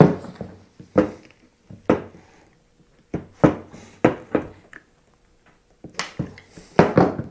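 Heavy-duty lug crimper clicking and clacking as it is squeezed to crimp a lug onto a heavy red wire: about ten sharp, irregularly spaced clicks, roughly one a second, some in quick pairs.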